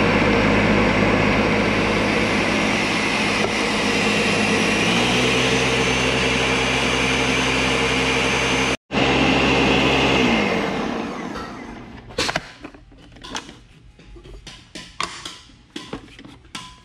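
Ninja Professional countertop blender running at full speed through a thick smoothie, its motor pitch stepping up slightly partway through, then spinning down about ten seconds in. Afterwards there are scattered clicks and knocks as the jar is handled and lifted off the base.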